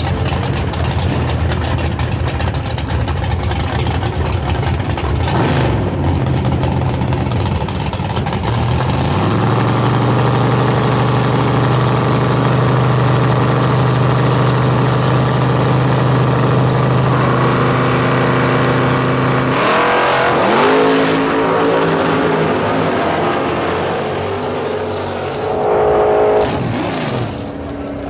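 Chevrolet Malibu drag car's engine idling at the starting line, then held at raised revs for several seconds while staged. About two-thirds of the way through it launches, its note rising quickly through the gears, then falling and fading as the car runs away down the strip.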